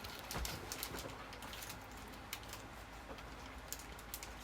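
Faint, scattered small clicks and crinkles of snack packaging being handled as biscuit sticks are taken out.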